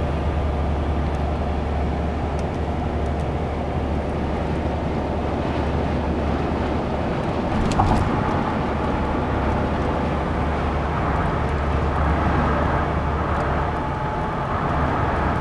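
Steady road noise inside a moving car at highway speed: engine and tyre rumble with an even hiss. A single brief click comes about eight seconds in.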